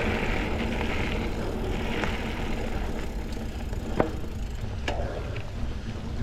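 Mountain bike riding over a dirt double-track trail: steady low rumble of tyres and riding noise with light rattles, and a sharp click about four seconds in.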